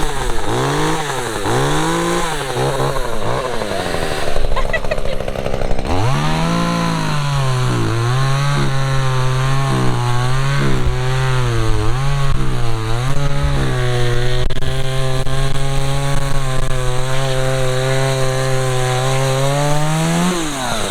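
Small two-stroke chainsaw revving in short blips, then held at full throttle and cutting through wood, its pitch pulled down and steady under load. It rises briefly as it breaks through and cuts off near the end.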